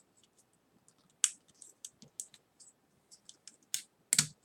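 Small plastic vinyl-figure pieces and accessories being handled and fitted, making irregular small clicks and scratches; the sharpest clicks come about a second in and near the end.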